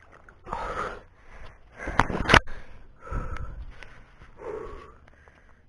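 A person breathing hard and splashing while wading through knee-deep marsh water, in several separate bursts, the loudest about two seconds in.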